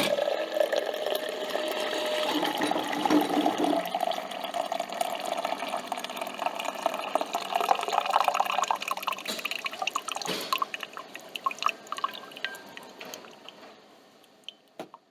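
Coffee machine dispensing coffee into a cup: a trickle with many small drips that slowly tapers off and fades out toward the end.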